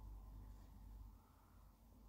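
Near silence: faint room tone with a low rumble.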